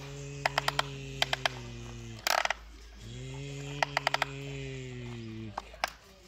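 Someone imitating an excavator engine with his mouth: a steady low humming drone held for about two seconds, a short break, then held again for over two seconds. Quick runs of plastic clicks from the hand-worked toy excavator come in between, with a brief rustle of dirt about two seconds in.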